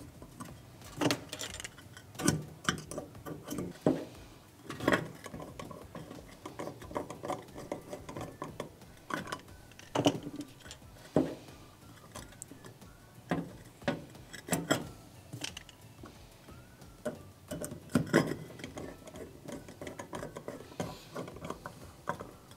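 Irregular small metallic clicks and knocks from handling a gas range burner base and igniter and turning its Phillips screws with a screwdriver.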